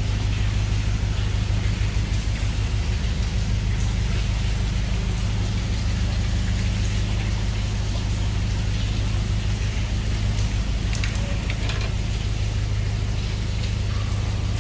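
Narrowboat's diesel engine running steadily inside a brick canal tunnel, a deep even hum, with water dripping and pouring from the leaky tunnel roof onto the boat.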